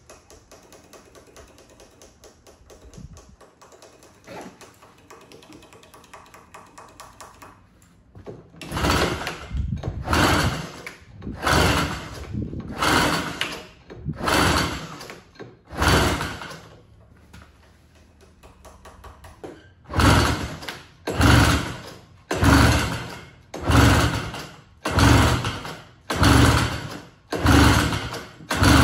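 1971 Skiroule RT500 snowmobile's two-stroke engine being cranked by its recoil pull starter without catching. After a few quiet seconds come about six pulls, a short pause, then about nine quicker pulls, each a short whoosh with no running in between: the engine, which has sat for years, is not yet firing.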